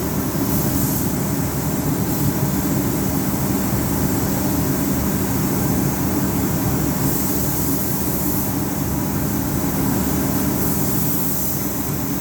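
Air compressor running with a steady low hum, while a paint spray gun's high air hiss comes and goes several times.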